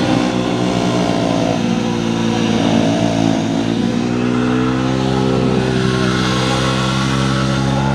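Jawa motorcycle engine held at high revs during a burnout, its rear tyre spinning on grass and dirt. The note is steady and loud, wavering a little in pitch.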